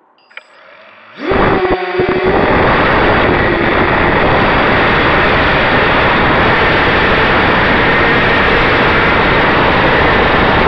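ZMR250 FPV quadcopter's brushless motors and propellers, heard through the onboard camera. A faint whine rises within the first second, then the throttle jumps and a loud, steady buzz of spinning props and rushing air carries on as it flies.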